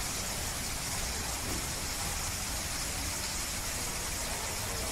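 A steady hiss, brightest in the high treble, over a low rumble, holding an even level throughout with no distinct knocks or crunches standing out.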